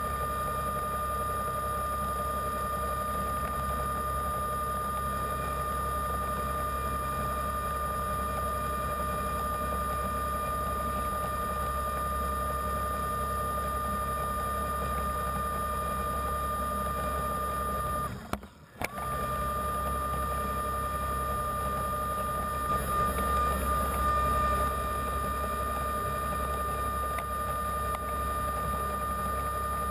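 Steady high whine of a diver propulsion vehicle's electric motor, heard underwater with a low hum beneath it. The sound cuts out for a moment a little past the middle, and the whine rises back up as it returns.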